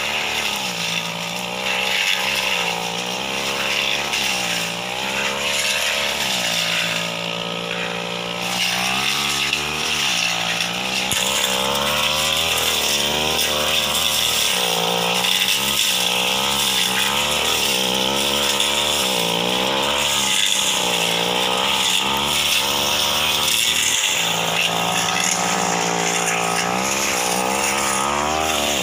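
Backpack brush cutter's petrol engine running at high revs, its pitch dipping and rising again every second or two as the blade cuts through ferns and brush.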